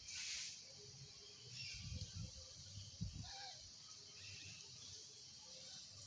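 Quiet outdoor ambience: a brief rustling whoosh in the first half second, then faint low rumbles and a few faint, short bird calls.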